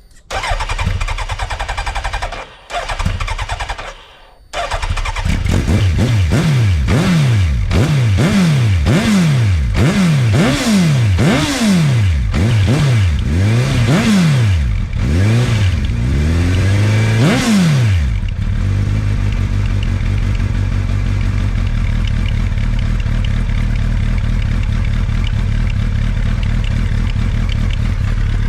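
2004 Suzuki GSX1300R Hayabusa's inline-four through an Akrapovič full exhaust: after two short bursts it catches about four seconds in, is blipped about a dozen times with the revs rising and falling, then settles to a steady idle. The engine is running well with no abnormal noises.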